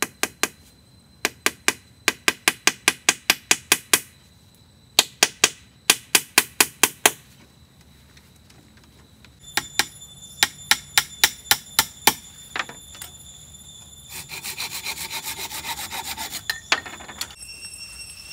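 A saw cutting wood in runs of quick, even strokes, about four a second, with short pauses between the runs. Near the end the strokes merge into a denser, continuous rasp.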